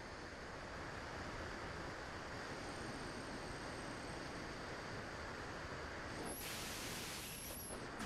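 Airflow rushing over the microphone of an RC plane's onboard camera in flight, a steady hiss that grows louder and brighter for about a second and a half near the end.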